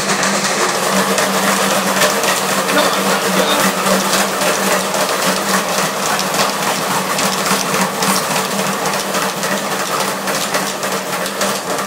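Dog treadmill running: a steady motor hum with a dense, rapid patter of a French bulldog's paws striking the moving belt.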